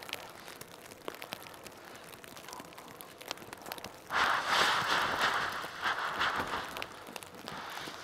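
Soft scattered crunches of a shovel in deep powder snow. About four seconds in, a loud rush of snow and nylon tent fabric lasts about three seconds as the buried tent fly is pulled at and freed.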